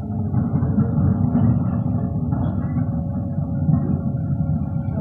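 JCB 3DX backhoe loader's diesel engine running steadily, a low rumble.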